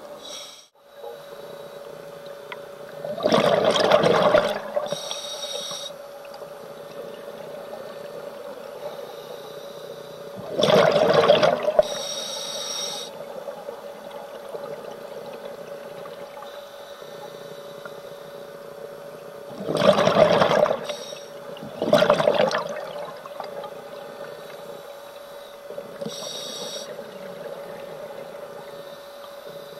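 Scuba diver's regulator breathing: four loud bursts of exhaled bubbles, the last two about two seconds apart, with a higher hiss of an inhale following some of them. A steady hum runs underneath.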